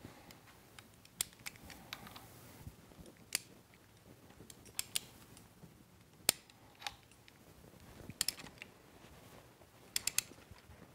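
Scattered sharp metallic clicks and clinks of a torque wrench on a milling-machine vise screw as the vise is clamped onto a test block, coming irregularly, some in quick pairs, the loudest about halfway through.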